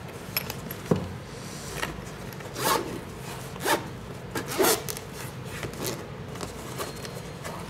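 Hands handling parts of an opened iPad on a work surface: a light knock about a second in, then several short rubbing, scraping sounds.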